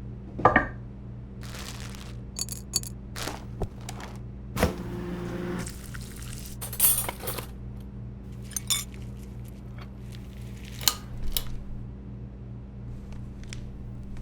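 Kitchen sound effects: dishes and cutlery clinking and knocking, with a brief pour about four and a half seconds in, over a steady low hum.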